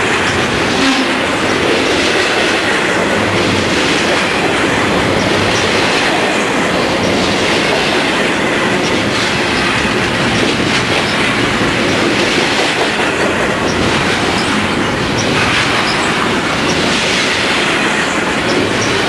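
Double-stack container train's well cars rolling past close by: a loud, steady rumble and clatter of steel wheels on the rails.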